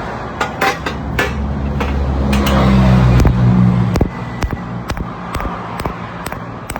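Steel fabrication work: irregular sharp metallic clicks and knocks over a low hum that swells to a peak around three seconds in and drops off about a second later.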